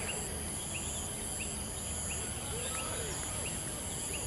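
Outdoor ambience: a steady high-pitched insect drone, with short chirps repeating throughout.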